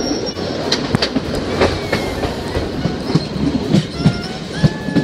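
Diesel railcar running slowly through station points, its wheels clicking irregularly over rail joints and switches above a low rumble, with a faint wheel squeal in the second half.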